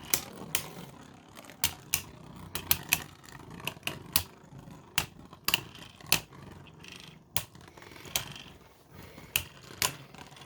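Beyblades battling in a plastic stadium: irregular sharp clicks and knocks, several a second, as the spinning tops strike each other and the stadium walls. One of them is the 3D-printed Artemis.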